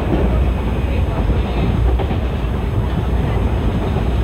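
Running noise of an ICF passenger coach moving along the track: a steady, loud low rumble of wheels and body with no distinct rail-joint clicks.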